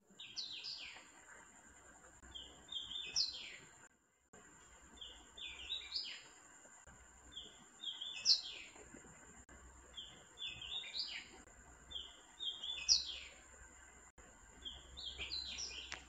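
A small songbird sings a short phrase of quick, high, rising notes, repeated seven times at about two-and-a-half-second intervals.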